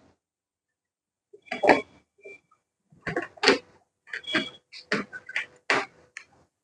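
Short, irregular metallic clicks and rattles starting about a second and a half in, as a hard drive is handled and screwed into a steel PC case's drive bay.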